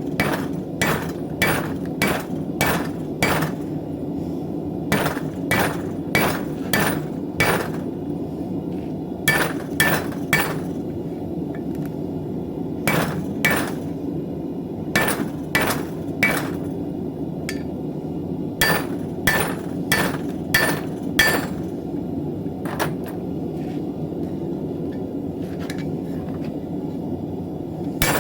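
Hand hammer striking steel on an anvil, in runs of several ringing blows about two a second broken by short pauses, over a steady low rushing noise.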